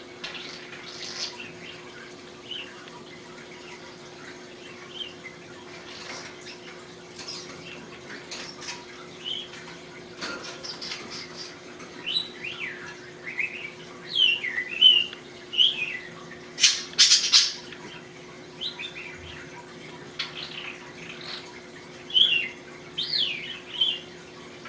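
English budgie chirping and warbling in short gliding notes, with a run of louder, harsher bursts about two-thirds of the way through.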